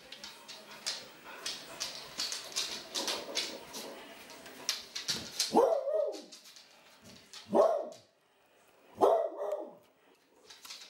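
Clumber spaniel barking three times, a couple of seconds apart, each bark dropping in pitch at its end. Before the barks, quick light clicking comes from her claws on the hardwood floor as she walks about.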